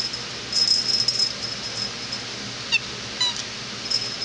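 A kitten giving two short, high chirping mews a little past halfway, each falling in pitch, calling up at a toy out of its reach. A brief rustle comes earlier, about half a second in.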